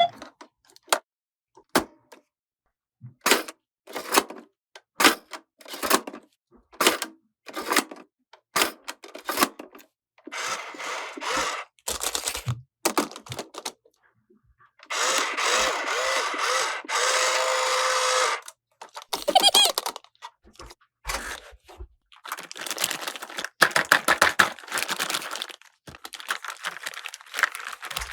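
Small plastic toy pieces being handled: a run of separate clicks and taps, with two longer rustling stretches, the longer one lasting about three seconds past the middle.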